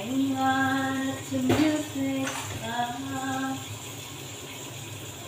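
A woman singing a slow tune alone in long held notes, with a single clink of a dish about a second and a half in.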